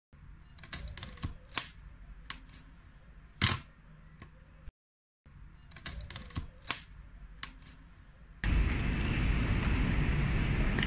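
35mm film camera clicks: a sharp shutter release and the short ratcheting clicks of the film advance lever, repeated twice with a brief break between. From about eight seconds in, a steady hum of street traffic takes over, with small handling clicks of the camera.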